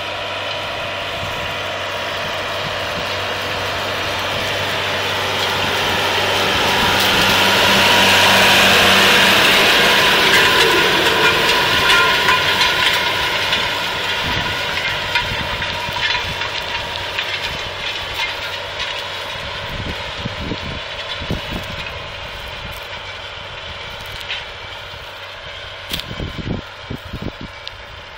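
Tractor engine pulling a disc harrow through stubble, the discs cutting and turning the soil. The sound grows louder as the rig passes close by about a third of the way in, then fades as it moves away, with scattered sharp crackles near the end.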